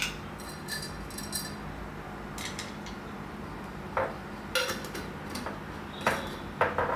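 Kitchen utensils and metal cookware clinking and knocking now and then, about eight separate strikes, some of them ringing briefly.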